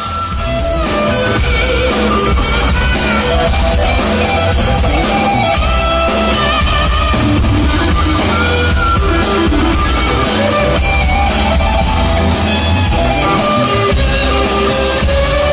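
A band playing music: held melody lines over a strong bass and a steady beat.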